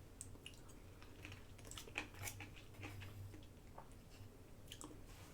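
Faint, scattered small clicks and soft crunches of someone eating quietly, with a low steady hum underneath.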